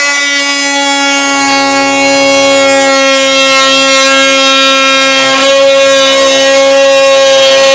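Power tool cutting out the rotted wooden bottom plate at the base of a wall, a loud steady buzz.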